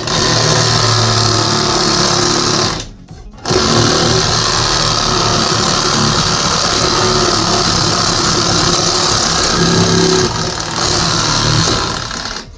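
Electric power tool running under load in two long runs, broken off briefly about three seconds in.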